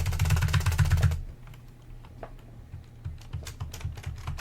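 Typing on a computer keyboard: a quick, loud run of keystrokes for about the first second, then a few scattered, fainter single key presses.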